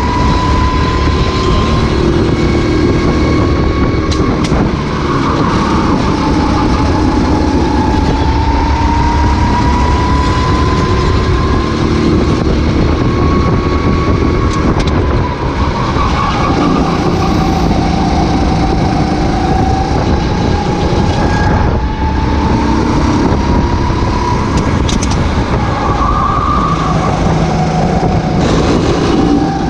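Racing kart engine running hard on track, its pitch rising and falling several times as the kart speeds up down the straights and slows for the corners.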